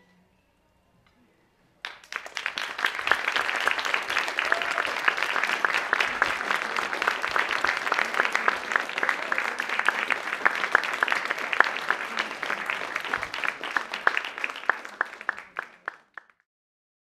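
Audience applauding. The applause breaks out about two seconds in after a short silence and stops abruptly near the end.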